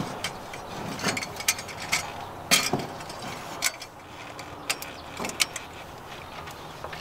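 Irregular metal clicks and clanks as a collar is fitted and fastened around a wood-stove chimney pipe, the loudest knock about two and a half seconds in.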